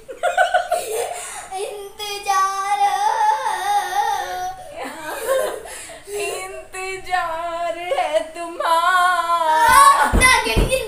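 A woman and a young girl singing a Hindi song together, unaccompanied. Near the end, music with a heavy, regular beat comes in.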